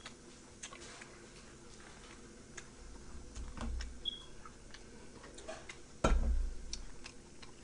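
Quiet eating sounds: scattered soft clicks and smacks of chewing, with a single low thump about six seconds in.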